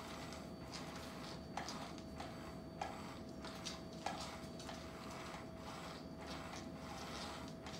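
Small battery motor of a motorized cat toy whirring faintly and steadily under its fabric cover, with a few sharp clicks and light ticks.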